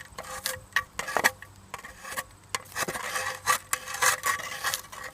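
Irregular scraping, rubbing and small clicks as a wasp nest full of paralysed spiders and larvae is poked and picked open.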